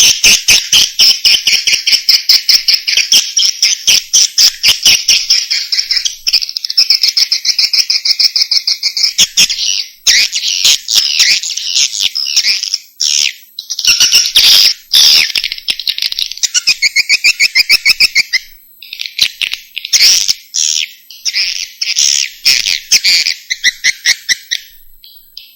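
Swiftlet calls used as a lure sound for swiftlet houses: rapid, chattering trills of clicks. They come in phrases a few seconds long, with brief breaks between them.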